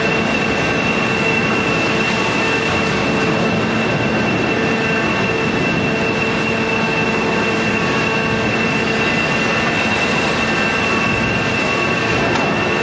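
Loud, steady industrial machinery noise of a waste shredding plant with a wheel loader working its feed hopper: a dense even din with a constant high whine and a lower hum that drops away about nine seconds in.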